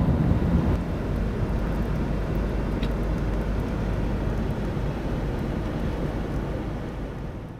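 Steady road noise of a car driving at speed, fading out near the end.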